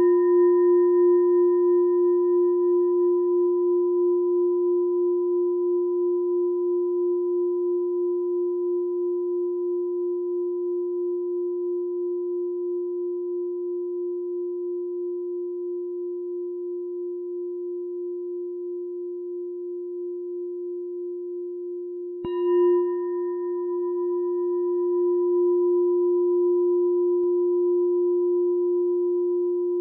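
Meditation bell ringing out after a strike, one deep sustained tone with fainter higher overtones, slowly fading with a gentle wavering pulse. It is struck again about 22 seconds in and rings on.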